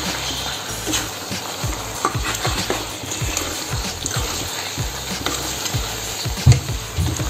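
Metal spoon stirring paneer cubes through thick masala gravy in a metal kadai, scraping and knocking irregularly against the pan while the gravy sizzles; one louder knock comes near the end.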